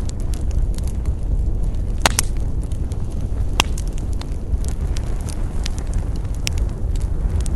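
Wood campfire crackling, with scattered sharp pops: the loudest are a quick double pop about two seconds in and a single pop a little later. Under them runs a steady low rumble.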